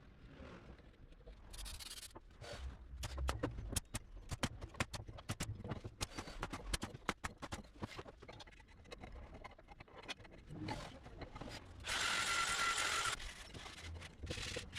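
A run of irregular sharp clicks and knocks of wood being handled, then a loud steady burst from a small power tool lasting about a second, near the end.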